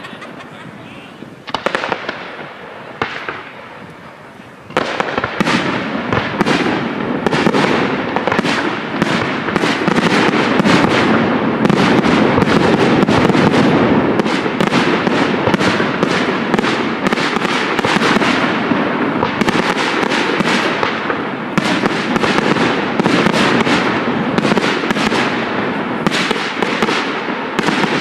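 Fireworks display: a few separate bangs and crackles, then about five seconds in a sudden dense barrage of rapid bangs and crackling that stays loud.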